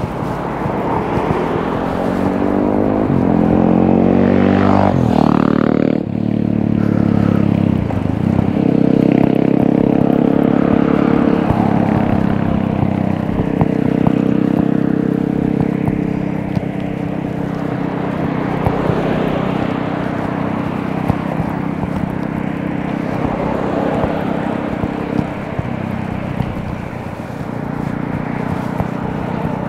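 Motor traffic on the highway beside the path: steady engine and tyre noise, with one vehicle going past about five seconds in, its pitch falling as it passes.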